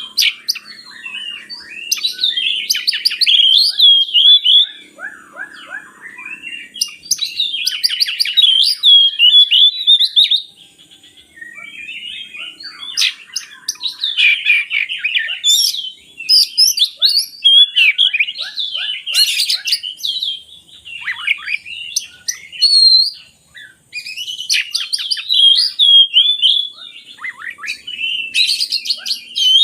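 Oriental magpie-robin singing a long, varied song of whistles, trills and rattling notes. It comes in phrases a few seconds long with short pauses between them.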